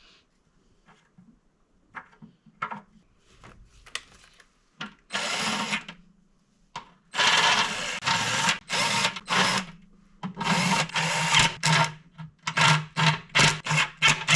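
A power drill running in a string of short bursts after a few light clicks of handling, with a steady low motor hum between the bursts, as it runs in the fastening bolts of the intake manifold on a BMW M62TU V8.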